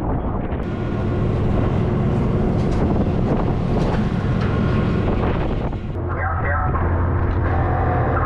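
A fishing boat's engine running steadily under rushing wind and sea noise. Near the end the engine hum is deeper and plainer.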